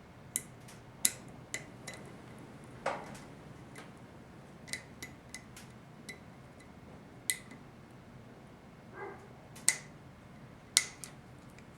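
Irregular sharp metallic clicks and light taps, about a dozen, from hand tools and small parts knocking against a 4L60E transmission pump during its rebuild. A part is being worked to push it into place, and it isn't going in.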